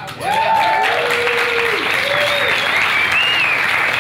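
Audience applauding steadily after a speech line, with a few cheers and a whistle rising above the clapping.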